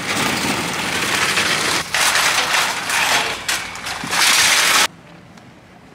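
Empty metal shopping trolley rattling loudly as it is pushed over rough paving; the rattle cuts off suddenly about five seconds in.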